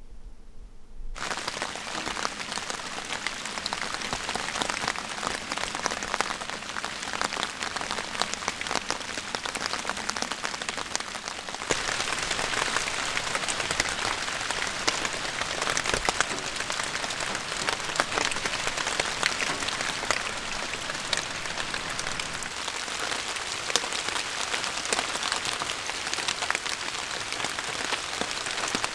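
Steady rain falling on leaves and ground, a dense patter of many small drops. It starts about a second in and gets a little louder about twelve seconds in.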